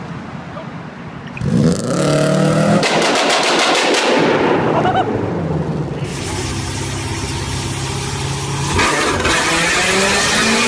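Loud-exhaust engines revving. The first rev climbs and then breaks into a rapid string of sharp exhaust pops and crackles, and another engine holds a steady note before revving up again.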